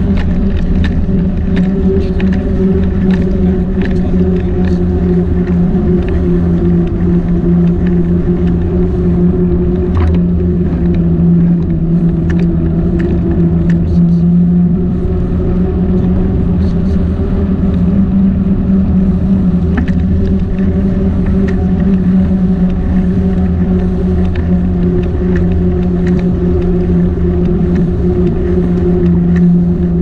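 A small motor running steadily at one constant pitch, with scattered light clicks over it.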